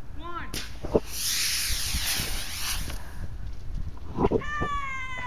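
Water rocket launching: a sudden hiss of pressurised water and air jetting from the nozzle, lasting about two and a half seconds, with a sharp click about a second in.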